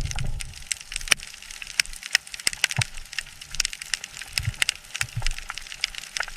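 Dense, irregular crackling: many sharp clicks, several a second, over a faint hiss, with a low rumble dying away at the start.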